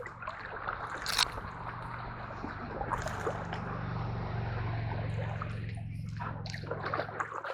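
Feet wading and sloshing through shallow swamp water and mud, with squelching steps and splashes, over a steady low hum.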